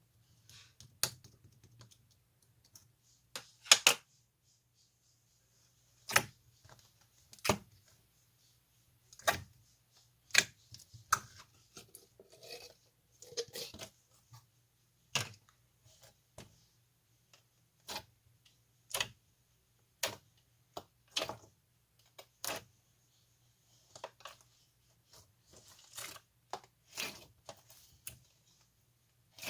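Yellow ice slime being pressed and poked by hand, its crisp surface giving sharp crackling clicks at irregular intervals of about a second, some in short clusters.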